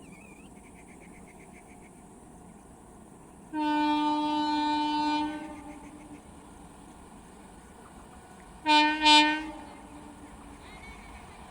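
Train horn sounding one long blast of about two seconds, then, about three seconds later, two short blasts in quick succession.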